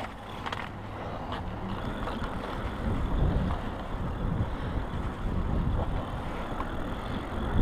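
Steady low rumbling noise, as of wind buffeting the microphone and tyres rolling while an e-bike is ridden, growing heavier about two seconds in.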